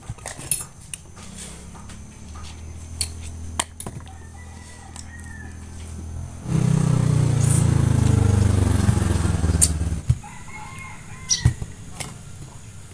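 Hands splitting and peeling wild passion fruit over a woven bamboo tray: scattered clicks and taps of fruit and knife. A loud low rumble lasts about three seconds in the middle.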